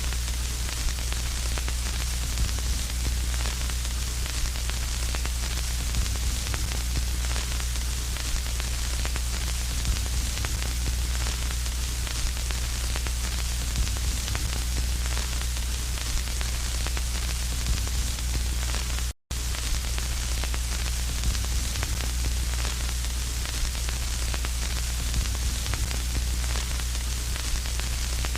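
Electronic static buzz: a steady hiss over a strong low hum. It cuts out to complete silence for a split second about 19 seconds in, then resumes.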